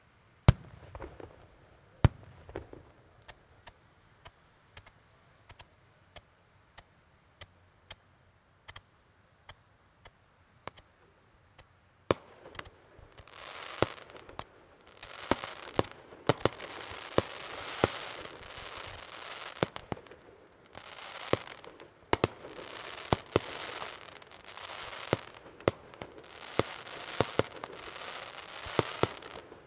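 Aerial fireworks display: two loud bangs in the first two seconds, then a steady string of fainter pops, then from about twelve seconds a dense barrage of sharp reports over repeated bursts of hissing, each about a second long, as effects are fired in quick succession.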